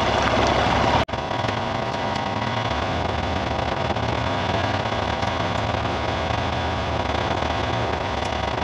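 Vehicle driving along a gravel track, its engine and the rush of wind and road noise heard through an onboard camera microphone; the sound cuts abruptly about a second in and carries on at much the same level.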